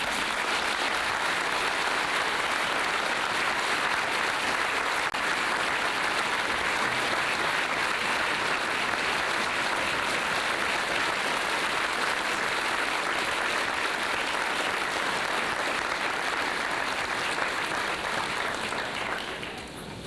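Large audience of students applauding steadily, dying away near the end.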